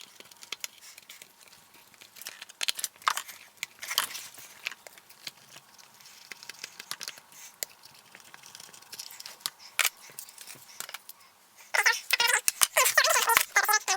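Sped-up sounds of an RC truck being taken apart by hand: scattered quick clicks, taps and rustling of plastic parts, screws and tools. About twelve seconds in, a louder, dense, high-pitched chattering starts.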